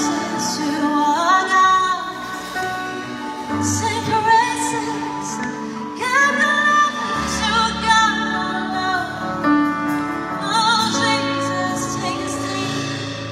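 A woman singing a slow worship song live, holding long notes with vibrato, backed by a band with electric and acoustic guitars and steady low accompanying notes.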